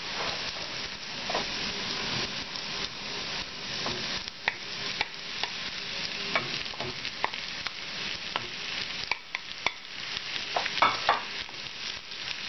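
Onions frying in a pan, with a steady sizzle, while a wooden spatula stirs them, scraping and knocking against the pan in scattered sharp clicks. About halfway through, chunks of potato are tipped in from a plate and stirred through the onions; the loudest knocks come near the end.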